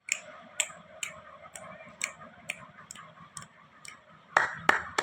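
Sharp clicks or taps at a steady pace of about two a second, with two louder ones near the end.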